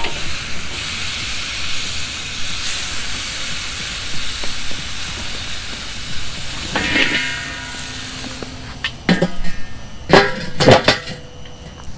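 Redfish fillets sizzling and hissing over hot charcoal on a kettle grill's grate after being flipped. Near the end come several loud metallic clanks with ringing as the domed lid goes onto the kettle.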